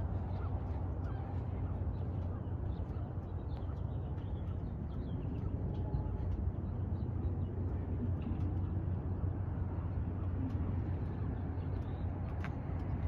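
A steady low rumble with faint bird calls over it.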